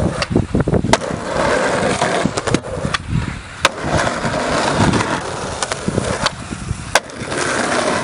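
Skateboard wheels rolling over rough concrete, broken by several sharp clacks of the board popping and landing.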